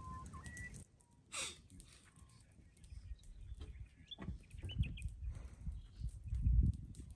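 Birds chirping and calling in the early morning bush, with scattered clicks and a low rumble on the microphone that swells loudest near the end.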